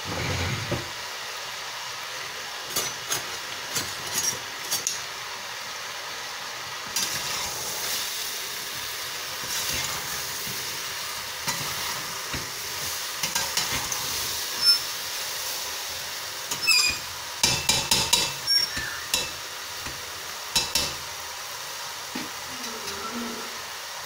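Chicken tenderloins and sliced mushrooms sizzling in a stainless steel pot, with a utensil stirring and clinking against the pot in several short bursts.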